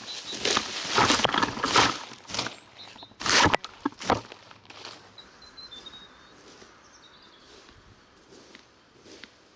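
A leaf rake scraping cut hedge leaves and grass clippings across a lawn: a run of quick strokes, then two louder sweeps about three and a half and four seconds in, followed by faint rustling.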